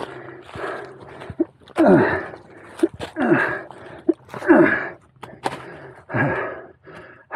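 A man breathing hard and panting, a breath about every half second to a second, with three loud falling groans on the exhale, from the exertion of climbing a steep slope on hands and knees.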